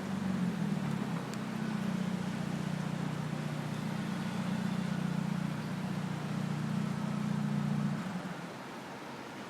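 A motor vehicle's engine running close by, a steady low hum over street hiss that fades out about eight seconds in.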